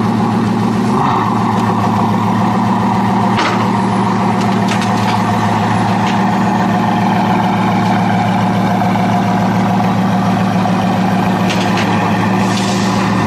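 Bugatti Veyron Super Sport's quad-turbocharged W16 engine idling steadily, with a few light clicks and a brief hiss near the end.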